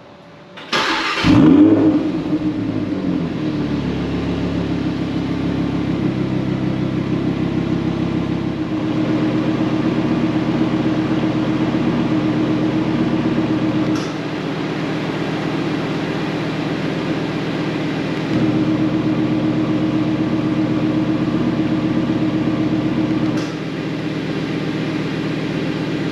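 Audi R8's V10 engine starting with a brief rev flare, then idling. The exhaust note steps quieter and louder a few times as the exhaust valves are closed and opened from an aftermarket valve controller's remote.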